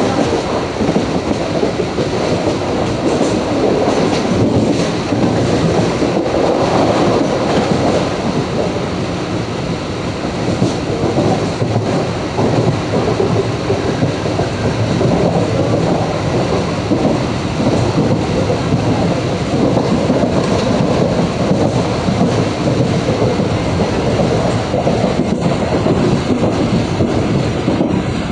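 Mumbai suburban local train (electric multiple unit) running at speed, heard from inside the coach: a steady rumble of wheels on rails with scattered clicks and clatter over the track.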